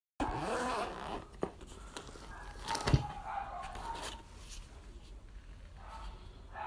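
Handling noise from a soft tool bag being rummaged, rustling and zip-like scraping, as Bosch cordless impact tools are lifted out, with a sharp click about three seconds in.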